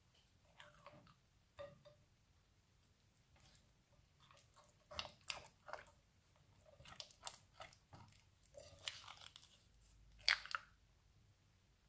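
Silicone spatula stirring sticky clear slime glue full of beads and sequins in a glass bowl: faint, irregular wet crackles and clicks in short bursts, the loudest about ten seconds in.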